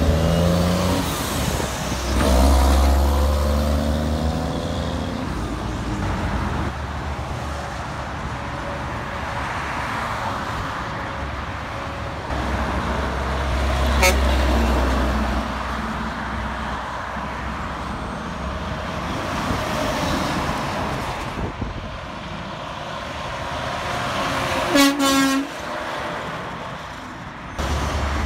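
Heavy diesel trucks pulling through an intersection: a concrete mixer truck's engine revs and shifts as it accelerates past, and a dump truck's engine rumbles by midway, over steady traffic noise. A vehicle horn toots briefly near the end.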